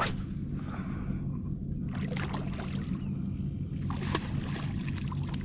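Boat's outboard motor, a 50 hp Honda four-stroke, running at a steady low idle. A redfish splashes at the water's surface beside the boat, briefly around two seconds in and again about four seconds in.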